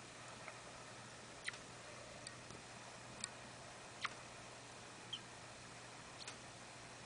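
A small pet sneezing: several soft, short, sharp sneezes at uneven intervals, roughly a second apart.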